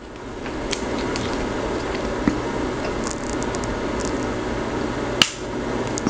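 Hand crimper squeezing an RJ45 pass-through connector on a Cat 6 cable, giving a few clicks and a sharp snap about five seconds in, over a steady background rush. It is a second crimp to press down contact pins that the first crimp left high, which would otherwise keep the line from making contact.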